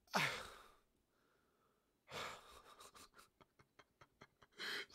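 A man's breathing in a pause between words: an exhale at the start and another breath about two seconds in, followed by a run of small mouth clicks, then a quick intake of breath near the end.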